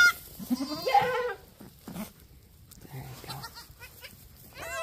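Mini-Nubian goats bleating: a high call about a second in, and another beginning just before the end.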